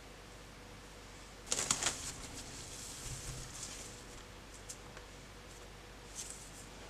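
Bare hands squeezing and squishing boiled potato into mash: a burst of moist, crackly squelches about a second and a half in, softer squishing after it, and another short crackle near the end.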